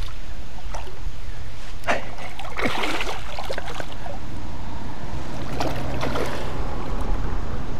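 A hooked carp thrashing and splashing in shallow water at the bank, in bursts about two seconds in and again around six seconds, over a steady low rumble.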